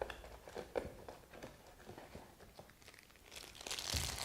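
Camera accessories and their packaging being handled: small clicks and taps with light rustling, then louder crinkling near the end.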